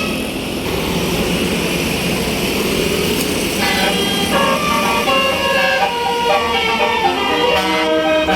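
Passing bus rumbling, then, about three and a half seconds in, its telolet basuri musical air horn plays a quick melody of several notes stepping up and down in pitch.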